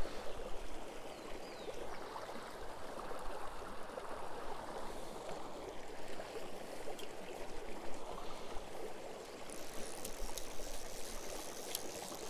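Mountain river running over stones: a steady rush of flowing water.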